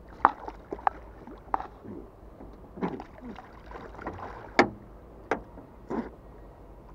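Sharp knocks and bumps on a small fishing boat: about six separate hits spread over the seconds, the loudest about four and a half seconds in.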